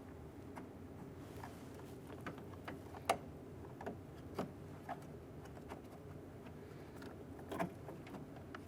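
Light, irregular clicks and taps of a door handle linkage rod and its plastic retaining clip being worked into place inside a car door panel, a few sharper clicks among them.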